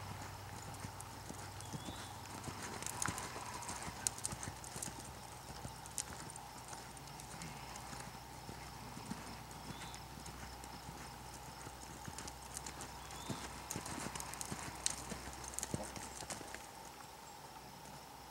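Hoofbeats of a horse loping on a sand arena: a running series of soft, uneven thuds and knocks.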